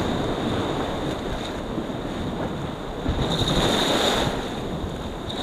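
Sea waves washing and splashing against shoreline rocks, with wind buffeting the microphone.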